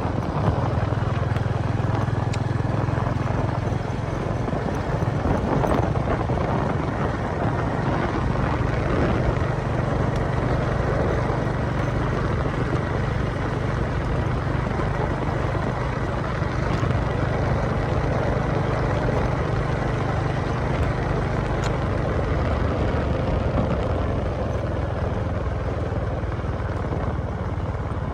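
Small engine running at a steady speed, a constant drone with no change in pace.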